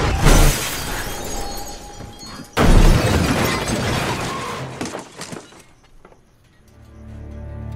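Car crash: a sharp impact, then a second, louder crash with shattering, its debris noise dying away over a few seconds. Low sustained music swells in near the end.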